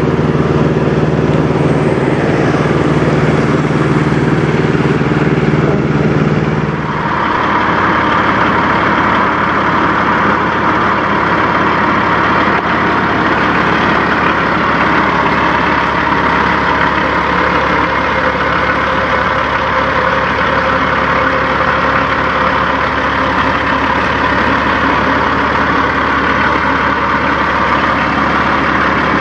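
Peterbilt semi trucks' diesel engines running. A steady engine hum with a low pitched drone gives way abruptly about seven seconds in to a second Peterbilt idling steadily up close, with a louder, harsher engine noise.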